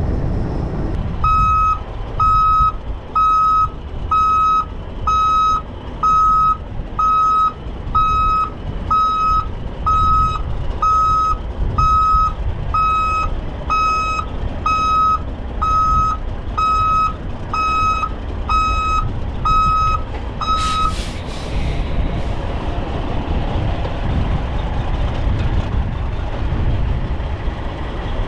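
Heavy truck's reverse alarm beeping steadily, about one beep a second, as the truck backs up; the beeping stops after about twenty beeps with a short sharp hiss. Strong wind rumbles on the microphone underneath.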